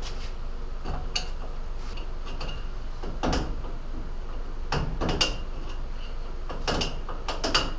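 Front brake drum on a 1965 Ford fastback being worked loose and pulled off the hub. Scattered metal clunks and scrapes, the loudest about three seconds in and again around five and seven seconds.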